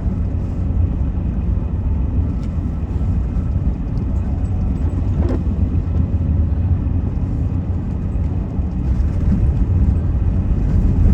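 Steady low rumble of a vehicle being driven on snowy roads, heard from inside the cab: engine and tyre noise.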